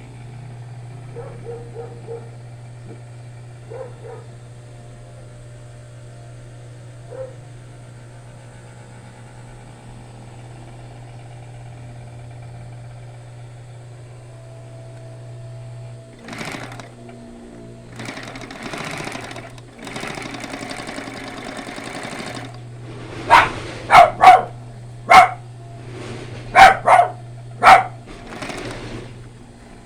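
A Union Special 56300 industrial sewing machine: its motor hums steadily, then the machine runs in stretches from a little past halfway. A dog barks about six or seven times in quick succession near the end, louder than the machine.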